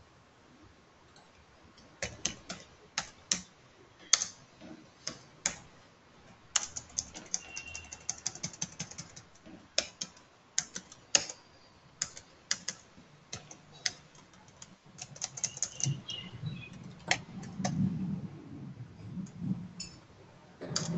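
Computer keyboard typing in irregular runs of quick keystrokes, with pauses between runs.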